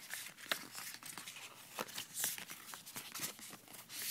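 Faint rustling of packaging with scattered light clicks and taps as an iPad and its box are handled, with a louder rustle about two seconds in and again near the end.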